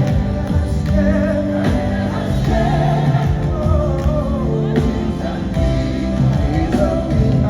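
Gospel worship music with singing over sustained instrumental chords.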